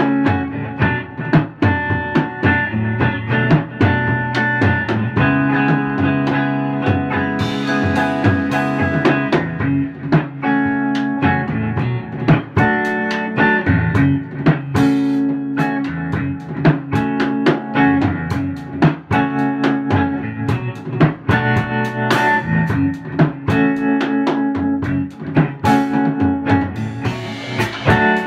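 Instrumental jam: a white Fender Stratocaster electric guitar played through a Fender Princeton Reverb amp, with a drum kit keeping a steady beat.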